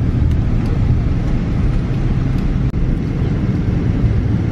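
Steady low cabin noise inside a Boeing 777 taxiing: its jet engines running at low power and the airliner rolling along the taxiway, heard from a window seat over the wing.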